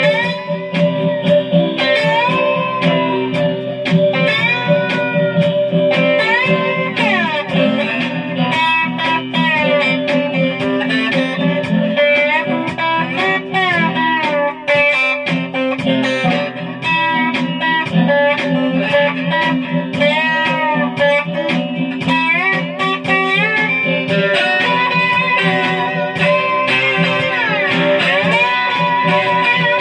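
Guitar played with a slide, notes gliding up and down in pitch over steady ringing lower strings.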